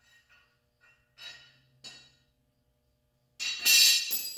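Steel lawn mower blades being handled and set down: a few light knocks, then a loud metallic clank about three and a half seconds in that rings briefly.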